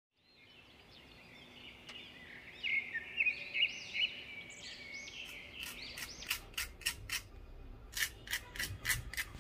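Small birds chirping for the first several seconds, then a quick run of sharp crackles: the crisp fried crust of an aloo tikki (potato patty) breaking under a fork.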